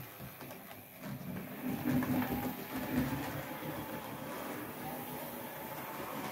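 OO gauge Oxford Rail Adams Radial 4-4-2 tank locomotive running along model track: a steady rattle of small wheels on rail with a faint motor whine, a little louder about two to three seconds in.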